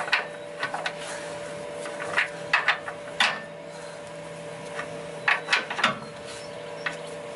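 A long-handled wrench being worked on a track bar bolt: scattered metallic clicks and scrapes, bunched in short runs about two seconds in and again past five seconds. A steady hum runs underneath.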